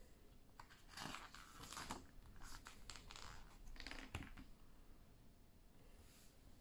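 Faint rustling of paper pages and a few soft taps as a picture book is flipped through by hand to its back cover, settling down after about four and a half seconds.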